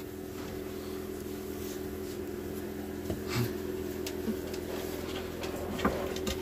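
A steady low hum, with a few faint taps and scrapes of a puppy's claws on a hard tabletop.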